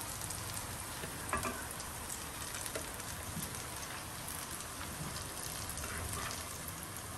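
Onion and potato pakoras deep-frying in hot oil: a steady sizzle, with a brief click about a second in.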